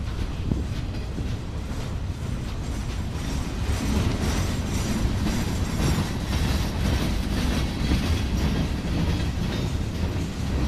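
Freight train cars rolling past, empty bulkhead flatcars then a boxcar: a steady rumble of steel wheels on rail with rapid clicking over the rail joints, getting louder about four seconds in.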